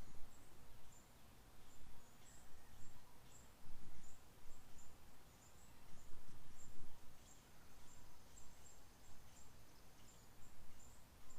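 Small songbird giving short, high-pitched chirps, repeated irregularly about once or twice a second, over a low, uneven rumble of outdoor background noise.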